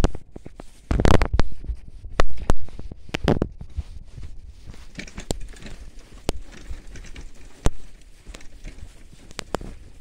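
Bicycle ride over a rough forest dirt track: irregular clicks, knocks and rattles as the bike jolts over the ground, with heavy low rumbles on the microphone about a second in and again after about two and three seconds.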